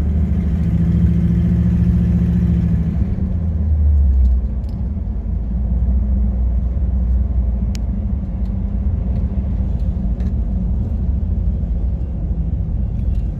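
Truck cab noise while driving: a steady low rumble of engine and road, easing slightly about four seconds in, with a few faint clicks.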